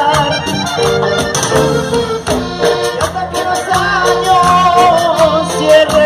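Live Latin-American band playing an instrumental passage between sung lines: a wavering accordion melody over electric bass, with steady, evenly spaced percussion.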